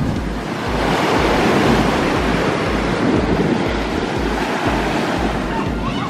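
Big waves breaking and washing up a sandy beach, swelling louder about a second in, with wind buffeting the microphone.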